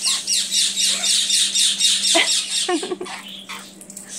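Conures giving rapid, repeated shrill squawks, about five a second, that thin out after about two seconds.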